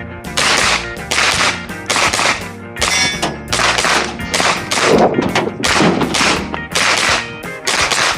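Pistol-caliber carbine fired in a rapid string of shots, roughly two a second, during a timed practical shooting stage.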